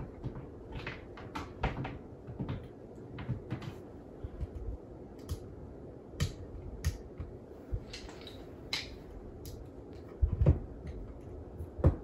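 Scattered light clicks and knocks from a plug-in wall reading lamp being handled and connected on the wall, with the loudest knocks near the end.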